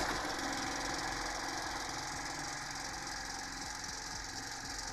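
Firman portable petrol generator engine running steadily just after catching on its electric key start. It eases to an even run within the first second. The engine is warm and was started with the choke left off.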